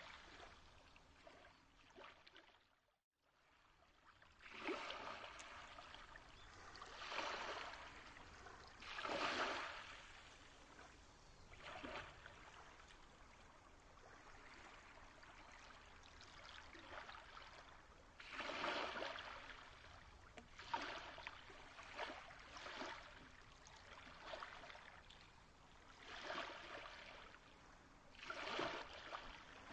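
Soft ambient flowing-water sound, faint and swelling and easing every few seconds, with a brief dropout about three seconds in.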